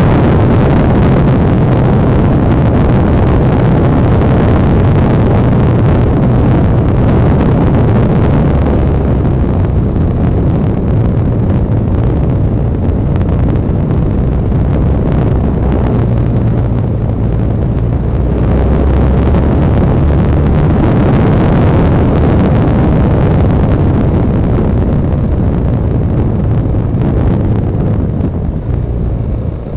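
Honda Dominator NX650's single-cylinder four-stroke engine running steadily under way, with wind noise over the microphone. The engine note drops and the level eases off near the end as the bike slows.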